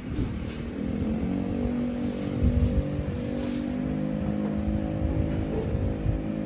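An engine running steadily, its pitch rising a little in the first second and then holding even, with wind gusting on the microphone.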